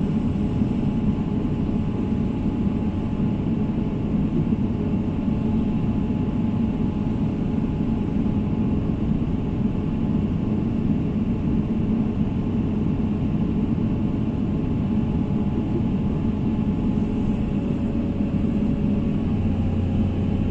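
Heavy excavator diesel engine running steadily, a continuous low rumble with a faint hum.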